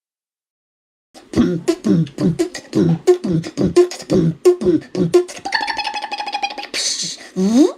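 About a second of silence, then a person beatboxing with mouth sound effects: a fast run of short low vocal pulses, then a higher buzzing tone, a hiss and a rising swoop near the end.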